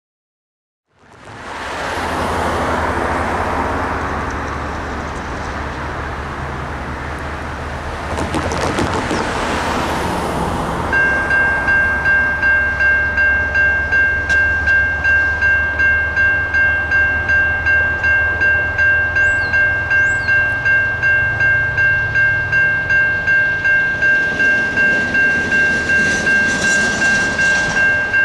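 Electronic railroad crossing bell (a low-tone Siemens electronic bell) starts about 11 seconds in and rings steadily at about two strokes a second as the crossing activates for an approaching freight train. Under it, and before it, is the low rumble of the approaching train.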